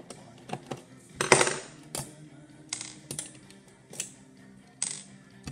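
Sharp metallic clicks and clinks from the sheet-metal top cover of a DVD drive being handled and pried loose, with one louder metal rattle about a second in.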